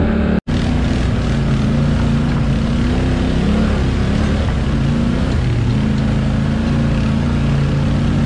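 ATV engine running steadily under the rider, its pitch stepping slightly up and down while riding over the trail. The sound drops out completely for an instant about half a second in.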